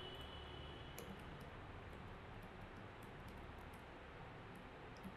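Faint computer keyboard typing: scattered quick key clicks, some in short runs, over a low steady hiss and hum.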